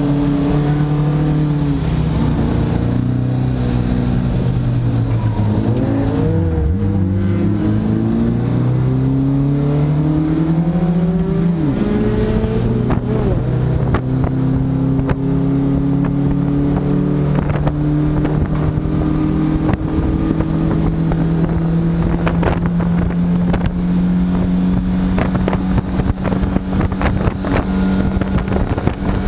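Race car engine heard from inside the cockpit over road and wind noise. The engine pitch falls over the first few seconds, wavers, climbs again, then holds steady through the second half, with sharp clicks and knocks near the end.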